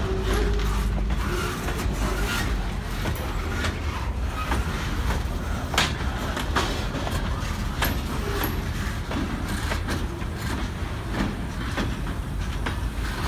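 Freight train cars, centerbeam flatcars and boxcars, rolling past on steel rails: a steady rumble of wheels on the track with scattered sharp clanks and knocks. Two brief high squeals come about two-thirds of the way through.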